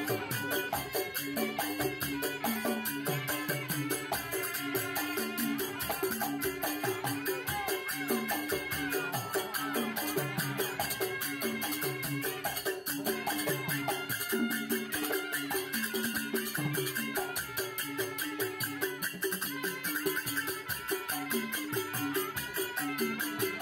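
Traditional folk music with a steady, rattling percussion beat under melodic instruments, unbroken throughout.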